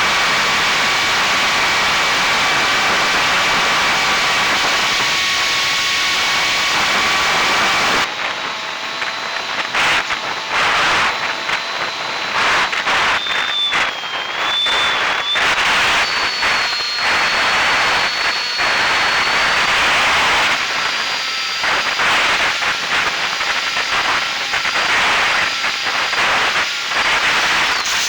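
Small electric RC plane's brushless motor and propeller whining under wind rush over the onboard camera's microphone. About eight seconds in the sound changes: the wind turns gusty and the whine rises and wavers as the throttle and airspeed change.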